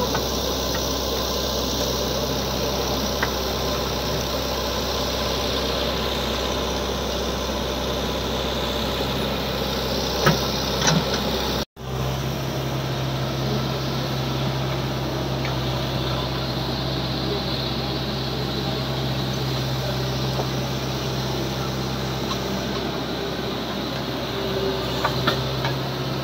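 JCB 3DX backhoe loader's diesel engine running steadily while the backhoe digs, with a few sharp knocks. The engine note cuts out for an instant about halfway through and comes back slightly different.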